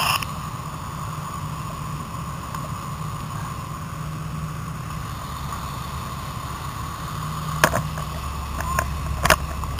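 Fire engine running steadily at the scene: a low rumble with a steady whine above it, and a couple of sharp knocks near the end.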